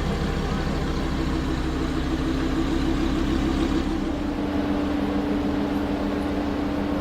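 Sports car engine running steadily near idle, with a deep rumble that eases about four seconds in while a steady hum holds on.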